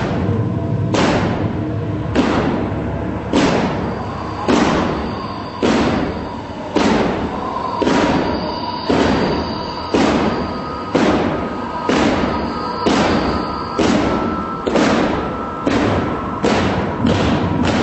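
Theatre score of heavy, booming drum strikes, about one a second, each ringing out over a held tone and a low rumble; the strikes quicken in the last few seconds.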